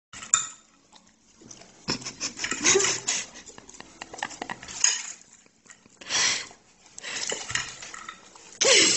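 Metal fork clinking and scraping on a ceramic plate in irregular bursts, with a few louder noisy rushes.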